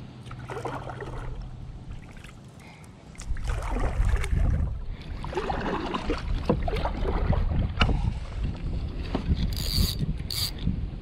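Kayak paddle strokes: a few dips of the blades into the water with splashing and dripping, while wind rumbles on the microphone.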